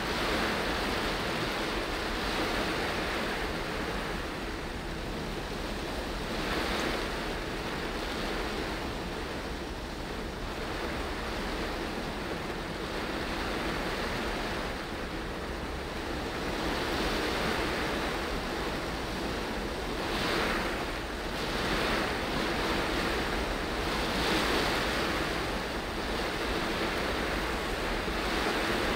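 Heavy rain on a moving car and tyres hissing on the wet road, heard from inside the cabin as a steady rushing noise that swells and eases every few seconds.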